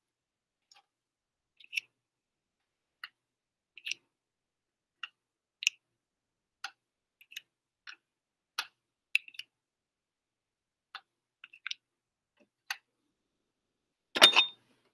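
Plastic spin-column tubes clicking as they are set one by one into a microcentrifuge rotor: light, irregular clicks, with one louder clatter near the end.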